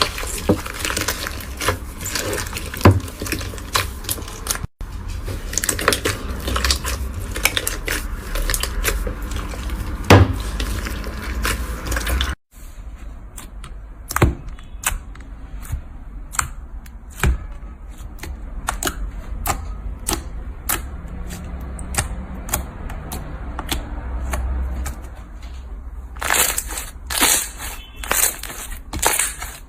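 Slime being squeezed and pressed by hand, giving dense crackling and popping clicks. The sound cuts off abruptly twice, about five and twelve seconds in, and after the second cut the pops come more sparsely, with a louder burst of crackling near the end.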